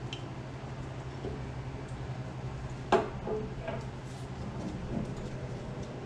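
A wheel speed sensor wire being pulled out of its clips on a motorcycle's front brake line: one sharp snap about three seconds in, then a few fainter clicks. A steady low hum runs underneath.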